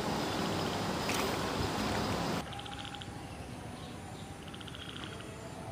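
Steady rough outdoor noise with one sharp click about a second in, then it cuts off abruptly about two and a half seconds in. After that, short rapid pulsed trills from small calling animals repeat every second or so over a quieter background.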